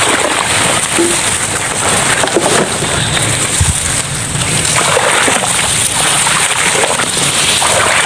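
A person wading through tall grass in shallow floodwater: continuous sloshing steps and grass brushing against the legs.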